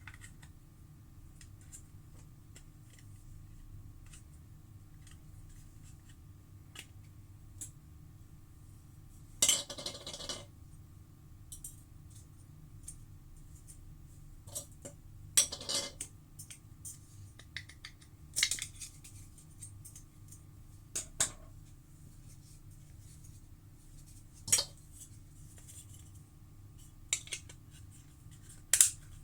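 Small hard plastic and metal parts clicking and clattering as a robot vacuum is taken apart by hand, in scattered sharp taps and a few short bursts of handling noise.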